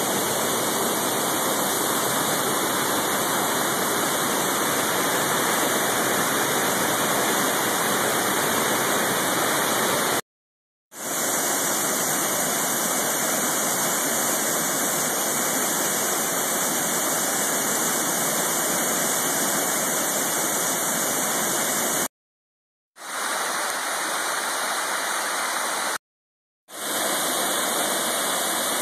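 Waterfall rushing steadily. The sound cuts out completely three times for under a second and comes straight back each time.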